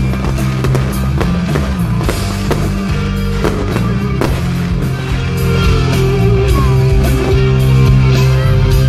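Loud show music with sustained low tones, getting louder about halfway through, over repeated sharp pops of aerial fireworks bursting.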